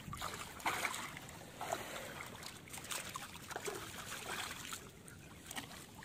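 Shallow water splashing and sloshing as people wade around a large shark held in the shallows, in irregular short splashes.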